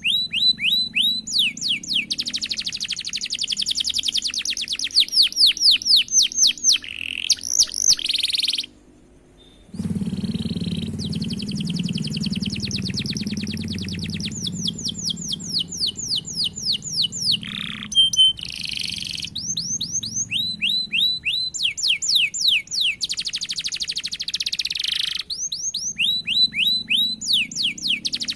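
Domestic canary singing long rolls: fast trills of rapidly repeated falling notes, high-pitched, broken by a short pause about nine seconds in.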